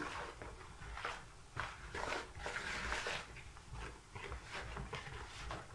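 Hand kneading pizza dough in a plastic bowl: moist flour and dough squishing and rustling in irregular strokes.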